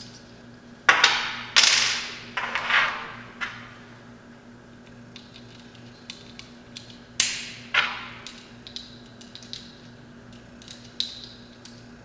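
Metal clacks and clinks from a hand crimping tool's frame and die set as the die is knocked loose and handled. Several sharp knocks come in the first few seconds and two more around seven to eight seconds in, each ringing briefly.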